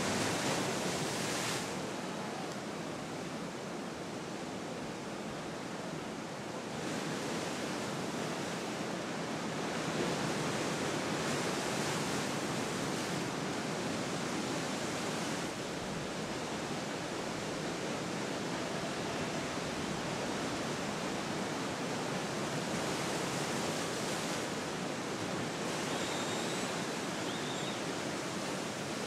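Ocean surf: breaking waves and rushing whitewater make a steady, even noise, shifting in tone a few times.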